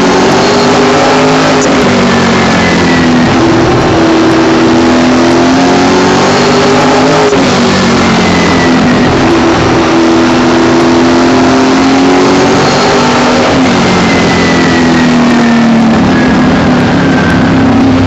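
Late model race car's V8 engine heard from inside the cockpit at racing speed, very loud. Its pitch climbs and then falls back several times as the car goes on and off the throttle around the oval.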